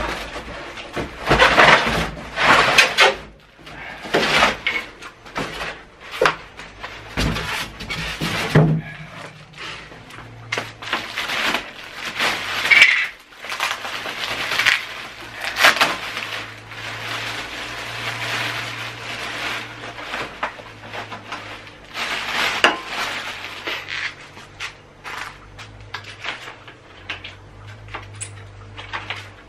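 Plastic wrapping film rustling and crinkling as it is pulled off a new benchtop planer, in irregular bursts, with occasional clattering of parts being handled.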